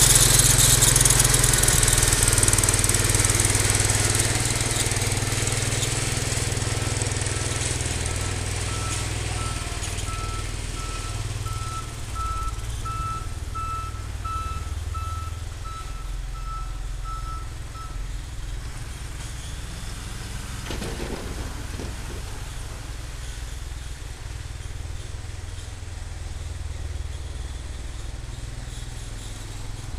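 Cub Cadet 149 garden tractor's single-cylinder Kohler engine running as the tractor drives away with its plow blade, the sound fading steadily over the first half and staying faint after. A faint beep repeats about twice a second through the middle.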